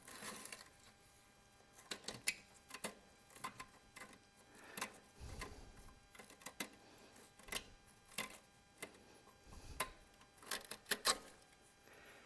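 Scattered metal clicks and clinks of a wrench working a stubborn bolt loose on an old tractor. The clicks come irregularly, with a quick cluster near the end.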